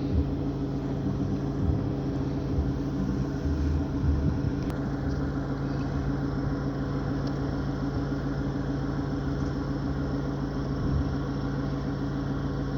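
A motor running steadily, a low even hum with no change in speed.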